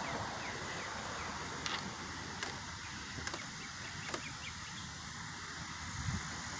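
Steady hiss of road traffic with wind rumbling on the microphone, and a few faint sharp ticks.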